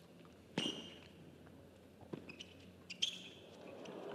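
Tennis rally on a hard court: racket strikes on the ball, three sharp hits spaced about a second apart, with fainter clicks between them. Crowd noise starts to swell near the end.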